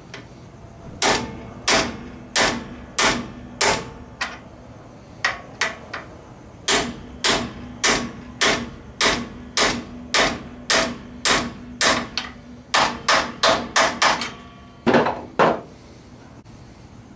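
A hammer repeatedly striking a metal driver tool set in the axle tube of a GM 10-bolt rear axle, driving a replacement part into the housing. About two dozen sharp metallic taps at roughly one and a half a second, with a brief pause early on and a quicker run of blows near the end, and a faint low ring from the housing between blows.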